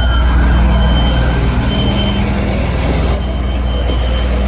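Fire truck's diesel engine running close by: a loud, steady low rumble.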